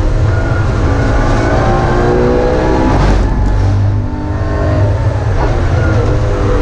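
BMW E46 M3's inline-six engine running hard under load, heard from inside the stripped race-car cabin. About three seconds in there is a short rasp, and a second later the engine note briefly drops before it pulls again.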